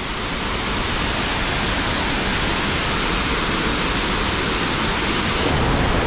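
A tall waterfall in full flow, heard close up: a steady, even rush of falling water, growing slightly louder near the end.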